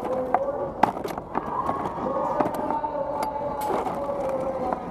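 Competition robot's drive motors whining at a steady, slightly wavering pitch, with frequent sharp knocks and rattles as it drives over the carpeted field, picked up by a camera mounted on the robot.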